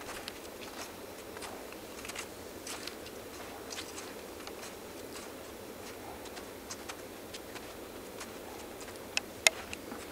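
Footsteps crunching on snow, an irregular run of soft crisp crunches and ticks, with two sharper clicks near the end.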